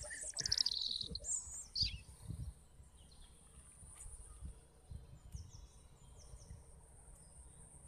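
A bird sings a quick run of high, falling chirps in the first second or so, with a few fainter short chirps later on, over a steady high-pitched insect drone. A few soft, dull thumps sound in between.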